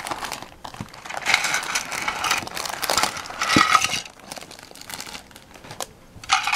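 Clear plastic parts bags from a Playmobil set crinkling and rustling as they are handled, in irregular bursts. The rustling is loudest in the first four seconds, eases off, then flares briefly near the end.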